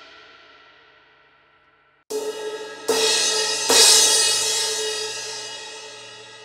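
A repaired 19-inch Sabian HHX X-treme Crash, with a section cut out of its edge, rings and fades away. About two seconds in, a still-cracked 18-inch Sabian AAXplosion Crash, before its crack repair, is struck with drumsticks three times less than a second apart. The third strike is the loudest, and the cymbal then rings on and slowly fades.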